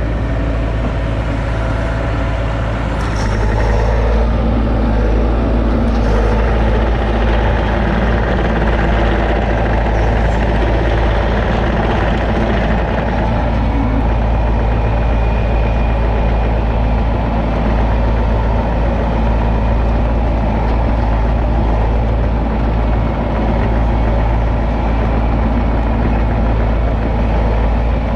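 Bobcat e42 mini excavator's diesel engine running steadily, a little louder from about four seconds in.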